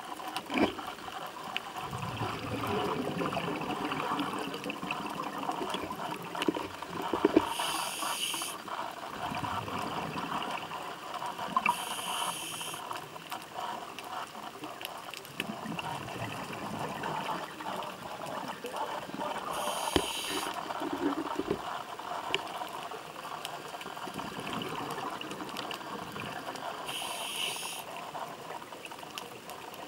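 Scuba diver breathing through a regulator, heard underwater: four breaths, each a short hiss, with bubbly gurgling between them.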